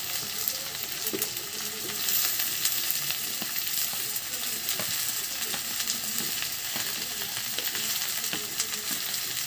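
Sliced onions and potato cubes frying in hot oil in a kadhai: a steady sizzle with scattered crackles and pops.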